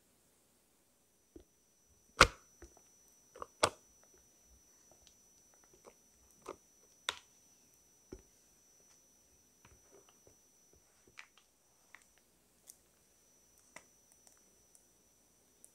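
Spatula knocking and scraping against a glass mixing bowl as thick chocolate cheesecake batter is scraped into a plastic piping bag. A few sharp knocks come in the first four seconds, the loudest about two seconds in, followed by scattered softer clicks and ticks.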